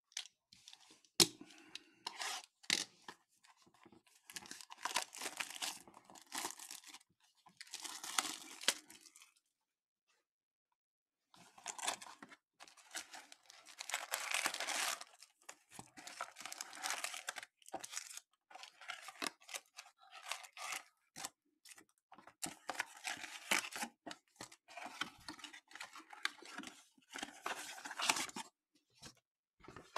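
A trading-card hobby box and its packaging being torn open by hand, with foil card packs crinkling as they are handled. It comes in irregular bursts of tearing and rustling, with a sharp click about a second in and a short pause about ten seconds in.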